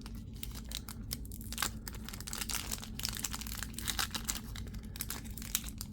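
Plastic wrapping on trading card packaging being crinkled and torn open by hand, a dense run of irregular crackles.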